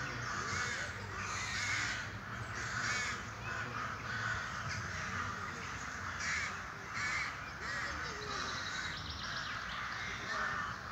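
Crows cawing, call after call in short harsh bursts, several birds overlapping.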